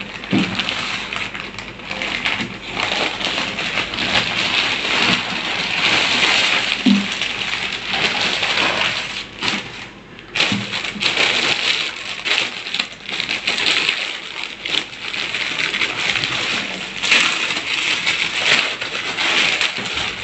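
Plastic packaging crinkling and rustling as it is handled: a plastic courier mailer bag being opened, then clear polythene bags as jeans are pulled out of them, with a brief lull about halfway through.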